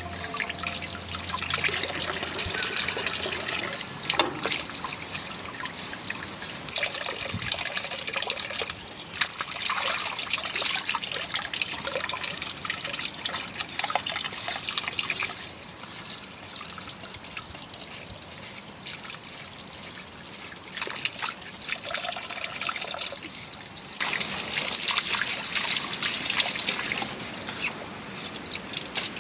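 Water trickling and splashing, with scattered small clicks and knocks. It is louder for the first half, eases off for several seconds, and picks up again near the end.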